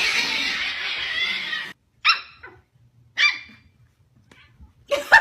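A loud rushing, hiss-like noise for under two seconds, then a dog barking twice, about a second apart.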